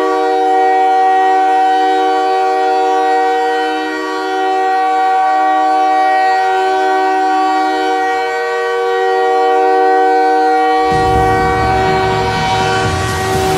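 Montreal Canadiens' goal horn blowing one long, loud multi-note chord without a break. About eleven seconds in, a low rumbling noise comes in underneath it.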